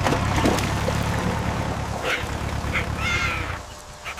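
Cartoon tractor engine running with a steady low rumble that dies away about three and a half seconds in. A few short animal calls sound over it.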